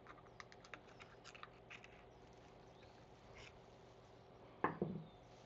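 Faint small clicks and taps of metal ratchet parts being handled, scattered through the first two seconds, then a louder knock and short rattle near the end.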